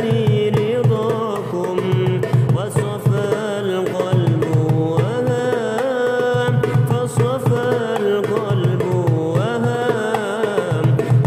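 Darbuka played by hand in a fast, steady pattern of deep doum strokes and sharp tek strokes, accompanying a recorded sholawat backing with a gliding melody line.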